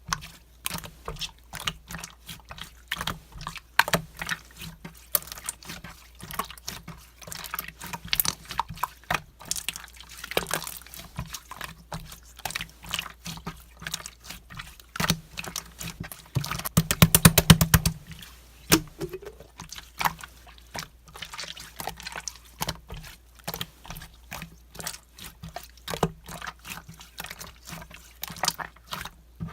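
Green gold-glitter slime being squished and pressed by hand: a steady stream of wet clicks and pops, with a quick rapid-fire run of pops a little past halfway.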